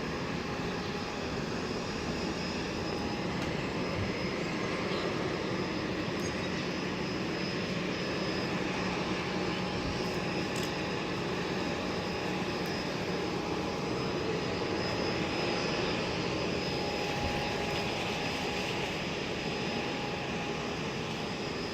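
Aircraft engines running steadily: a continuous drone with a faint, steady high tone, growing a little louder through the middle.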